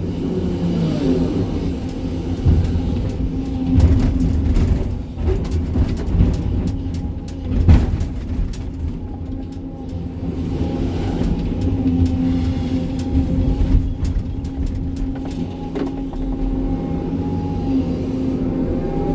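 Sany 305 excavator's diesel engine running steadily under working load, with several knocks and clanks of the bucket on rock, the loudest about eight seconds in.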